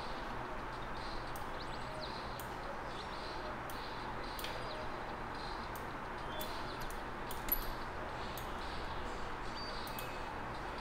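Steady room hiss with faint, irregular clicks from a computer mouse being clicked and scrolled, one sharper click about seven and a half seconds in.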